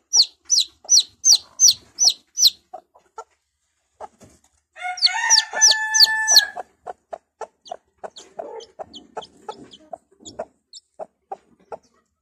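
A chick peeps loudly in a quick run of about seven high, falling peeps. About five seconds in, the mother hen answers with a drawn-out call, then keeps up a steady series of short, low clucks while the chick goes on peeping more faintly. This is a chick calling for its mother and the hen answering, so the chick can find where she is.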